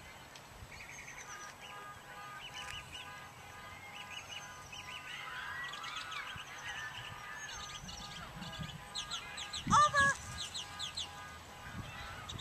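Birds chirping and calling in the background, with a loud honking call, doubled, about ten seconds in.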